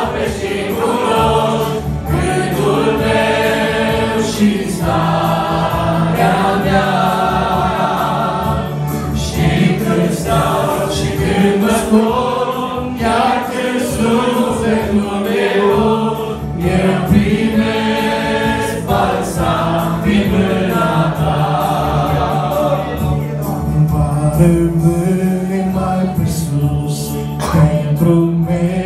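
A small mixed vocal group of one man and three women singing a Romanian Christian worship song together into microphones.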